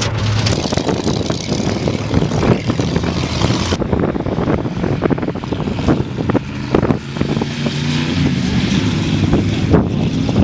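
Engine running with wind noise inside a moving vehicle with its window open. About four seconds in, this changes to the V8 engines of hot rod roadsters running hard as they race side by side on dirt, with scattered sharp cracks.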